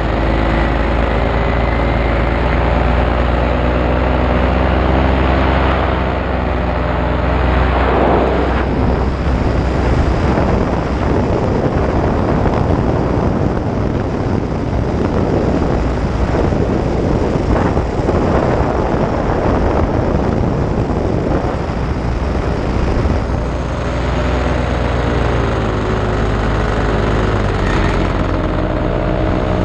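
Paramotor engine and propeller running steadily in flight, an even engine drone. From about 8 s to about 24 s a loud rushing wind noise on the microphone covers most of the engine tone, which comes through clearly again near the end.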